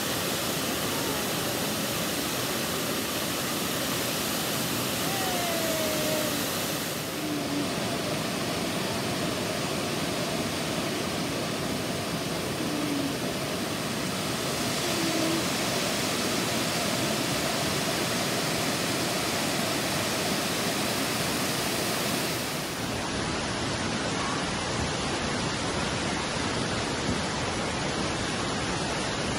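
Steady, even rush of a tall waterfall cascading down a rock face, a continuous hiss of falling water with no breaks.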